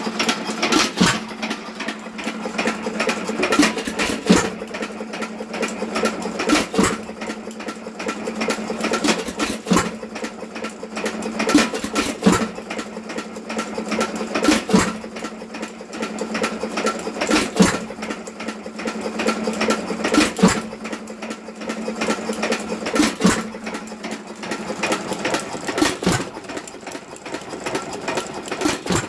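Associated 1.75 hp air-cooled hit-and-miss engine running: a steady fast clatter as it coasts, broken by a sharp firing bang about every two and a half to three seconds. The spaced bangs are the hit-and-miss governor letting it fire only when its speed drops.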